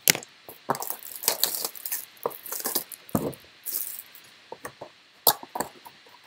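Trading cards and a card pack being handled: a run of irregular sharp taps and clicks with short crinkly rustles of card stock and pack wrapper.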